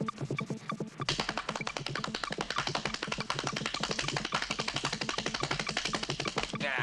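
Tap shoes striking a hard floor in a fast, dense run of taps. The taps grow louder and busier about a second in.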